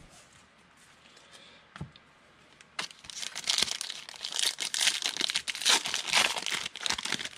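Foil trading-card pack wrapper crinkling as it is torn open by hand, starting about three seconds in after a near-quiet stretch.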